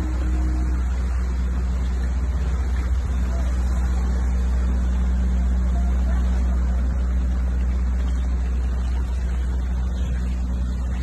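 An engine running steadily: a constant low rumble with an even hum over it.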